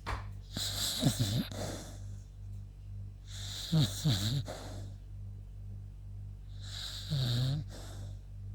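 Beagle snoring in her sleep: three snoring breaths about three seconds apart, over a steady low hum.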